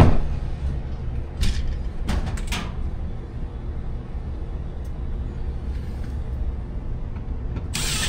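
Metal clanks and clicks of an HVAC unit's access panel and tools being handled while the unit is closed up: a few sharp clatters about a second and a half and two seconds in, a faint click midway, and a louder clatter near the end, over a steady low hum.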